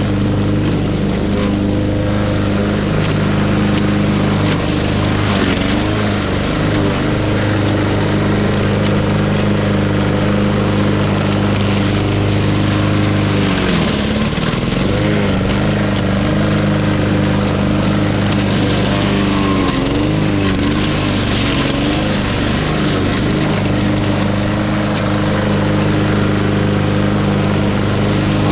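An engine running steadily, its pitch sagging and recovering briefly about halfway through and again a few seconds later, as if it is taking on load.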